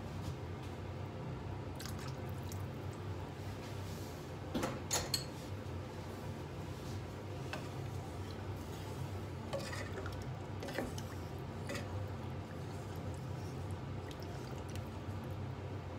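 Curry simmering and being stirred with a wooden spatula in a stainless steel pot, with wet liquid sounds over a steady low hum. Light knocks of the spatula against the pot come now and then; a short cluster of knocks about five seconds in is the loudest.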